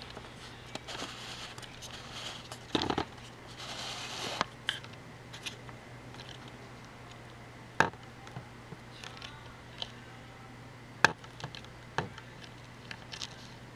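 Handling noise from a handheld camera: scattered sharp clicks and some rustling over a low steady hum, with the loudest clicks coming about eight, eleven and twelve seconds in.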